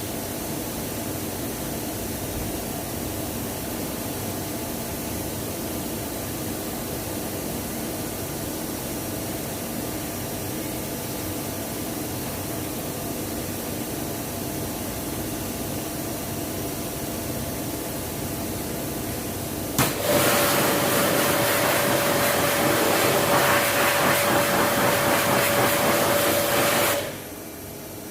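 A steady mechanical hum. About twenty seconds in, a loud hissing spray with a steady whine starts, as an engine-wash sprayer is worked over the engine bay. The spray runs for about seven seconds and cuts off abruptly.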